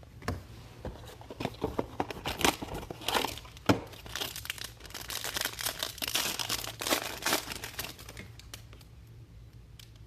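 Trading-card pack wrapper being torn open and crinkled by hand, a run of crackling and sharp tearing clicks that dies away about two seconds before the end.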